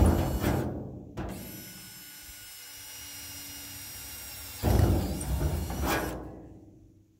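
Power drill boring drainage holes through the bottom of a galvanized steel livestock water trough, in two bursts: the first stops about a second in, the second starts past the middle and fades out near the end.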